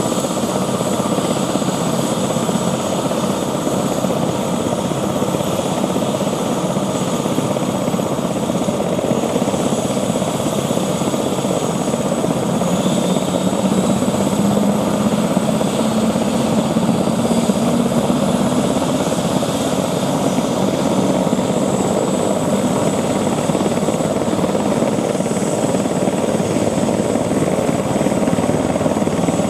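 Eurocopter EC145 twin-turbine helicopter running on the pad with its main rotor turning: a steady rotor beat under a high turbine whine. A faint low tone rises slightly around the middle.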